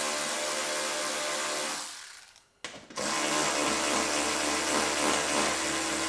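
Power drill running steadily; the motor winds down and stops about two seconds in, then starts up again about a second later.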